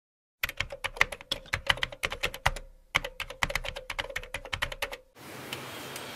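Computer keyboard typing sound effect: a fast, uneven run of key clicks with a short break about two and a half seconds in, stopping about five seconds in. A steady faint hiss follows.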